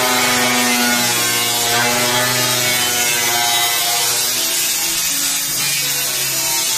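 Angle grinder cutting into the steel lid of a 200-litre oil drum, a loud steady grinding of disc on metal.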